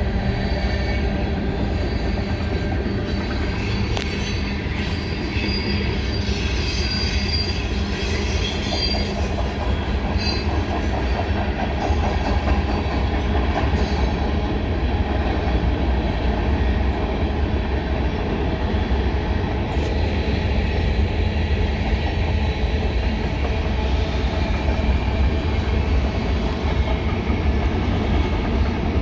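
A BNSF train's cars rolling steadily past at close range: a continuous heavy rumble of wheels on rail, with thin high wheel squeal over roughly the first ten seconds.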